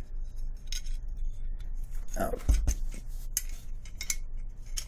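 Small metal parts clicking and clinking as hands handle a metal rifle handguard rail and work a screw into a rail section, with a dull handling thump about halfway through.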